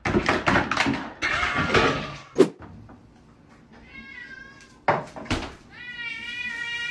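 Scuffling and clattering, then one sharp thunk about two and a half seconds in. A cat meows after that, and near the end a long meow rises and is then held.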